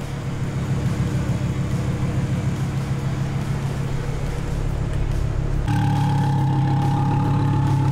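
Steady engine or machine hum. About six seconds in, a louder, higher steady whine switches on abruptly and keeps going.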